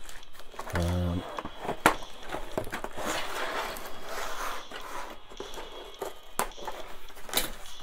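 Cardboard box flaps and plastic-bagged toy parts being handled, with rustling and crinkling and a few sharp taps. The loudest tap comes just before two seconds in.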